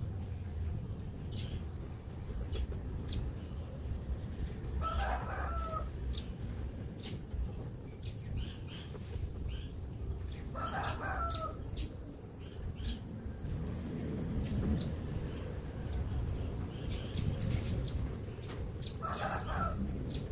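A chicken calling three times, each call about a second long and some six seconds apart, over a steady low background rumble.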